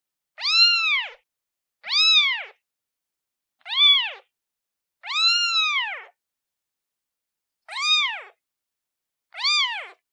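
Kitten meowing for its mother: six high-pitched meows about one and a half seconds apart, each rising and then falling in pitch.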